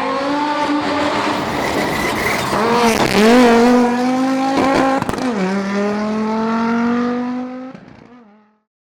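Audi Quattro S1's turbocharged five-cylinder engine running at held revs, with a short lift and change of note about three seconds in and a drop to a lower note about five and a half seconds in. The sound then fades out near the end.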